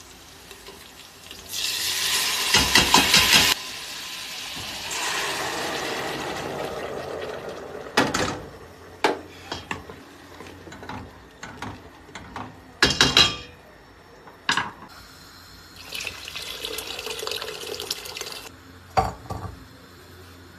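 Water running into a stainless steel pot for several seconds, then a few sharp clanks of steel pots and lids.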